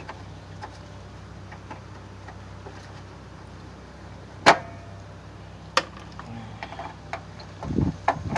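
Hand work on car parts: scattered light clicks and two sharp clicks about halfway through as fasteners and trim pieces are removed, over a steady low hum. Busier rattling and handling starts near the end.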